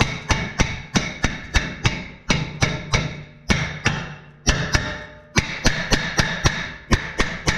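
Hammer striking the steel wheel hub of a 2014 Ram 1500 to knock off rust scale: a steady run of sharp, ringing metallic blows, about three a second.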